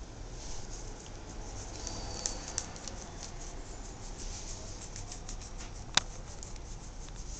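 Pen and crayon scratching on paper in many quick small strokes, with one sharp tap about six seconds in, over a low steady hum.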